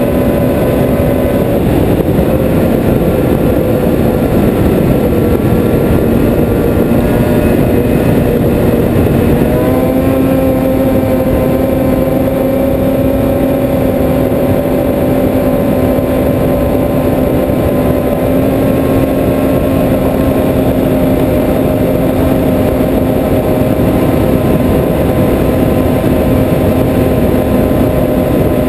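Snowmobile engine running at a steady cruising speed over a dense rushing noise of wind and track. The engine note sags a little early on, then rises about ten seconds in and holds steady.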